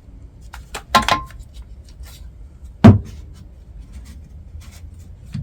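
Steel bar clamp being worked by hand: a sharp metallic clack with a short ring about a second in, a louder knock near three seconds, and light clicks between. The sliding jaw will not grip and slips along the bar.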